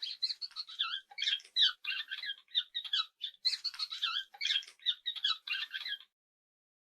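A small animal giving a rapid series of short, high-pitched squeaks and chirps, several a second. The run cuts off abruptly about six seconds in.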